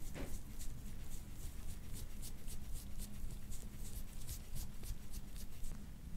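Quick, repeated scraping strokes over oiled skin on the back, about three or four a second, stopping shortly before the end; this is soft-tissue work on scar tissue that leaves the skin bruising.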